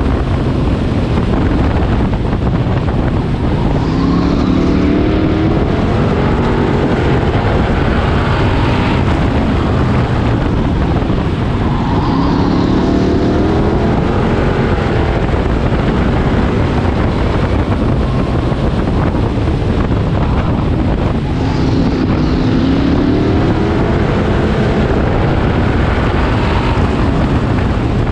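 Bomber-class stock car engine heard from inside the car while racing, running hard throughout, its pitch rising about three times as it accelerates out of the turns.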